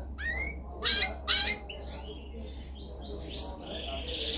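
Canary singing: a few loud rising, chirping notes in the first two seconds, then a run of quick falling whistles and a fast rolling trill near the end, over a steady low hum.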